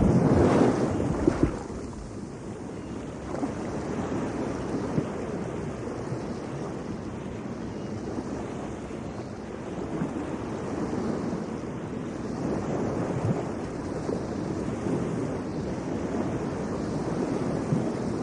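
Steady outdoor rushing noise of wind, with heavy low buffeting on the microphone during the first second and a half, then slow rises and falls.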